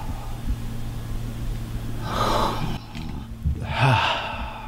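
A man's loud breathy sighs, twice, about two seconds in and again near the end, as he savours a glass of red wine like a connoisseur; a low steady hum runs underneath.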